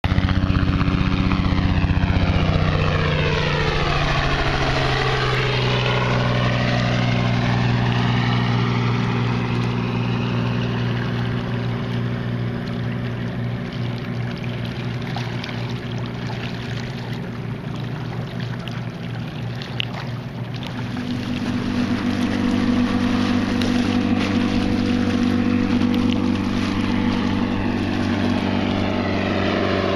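Engine droning steadily over open water, with a sweeping, phasing pass-by about five seconds in. It fades a little and grows louder again about two-thirds of the way through.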